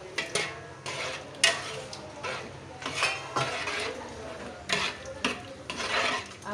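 A metal spoon stirring and scraping prawns and masala in a metal pot, giving a run of irregular scrapes and clinks over a sizzle as the masala fries in oil.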